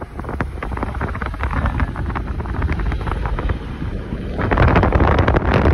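Wind buffeting the microphone from a moving car's window, over the car's engine and road noise; the rush gets louder and brighter about four and a half seconds in.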